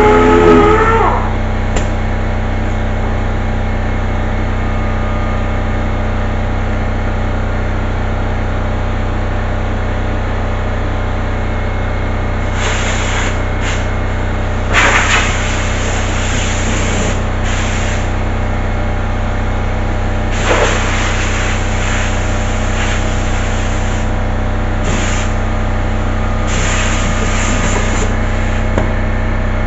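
A steady machine hum, with short hisses of compressed air every few seconds.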